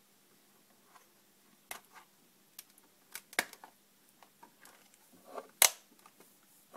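Scattered small clicks and taps from handling a netbook's parts during a RAM module swap, the two sharpest about three and a half and five and a half seconds in.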